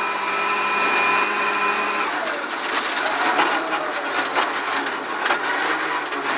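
Rally car engine at full throttle at high speed, heard from inside the cockpit, cutting off abruptly about two seconds in as the car brakes hard on gravel. While it slows it is crackling and popping, with the anti-lag system active, and stones rattle under the car.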